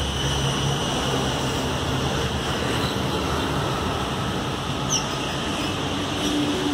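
Steady noise of highway traffic going by, with a brief high chirp about five seconds in.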